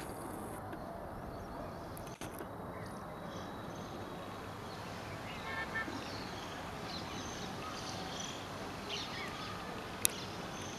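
Outdoor ambience: a steady background hiss with many short, high bird chirps, busiest in the second half, and one sharp click near the end.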